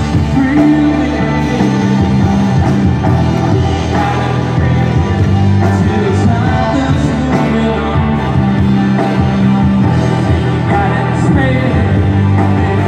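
Rock band playing live: electric guitars and drums with a singer, one continuous stretch of the song.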